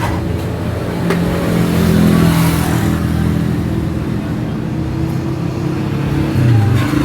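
A small motorcycle engine running, its revs rising about two seconds in and then holding steady.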